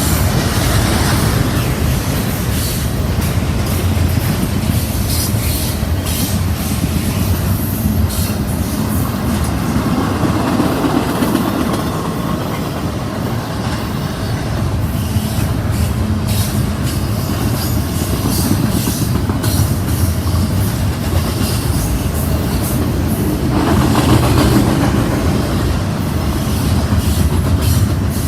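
A train rolling steadily past at close range, its wheels clicking over rail joints.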